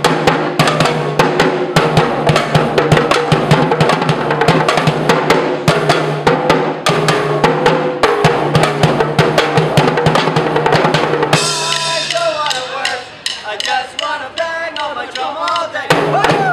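Street junk-percussion band drumming on plastic buckets, barrels, a metal trash can and drums: a fast, dense run of hits. About two-thirds in, the drumming drops back and goes quieter for a few seconds, then the hits come back loud near the end.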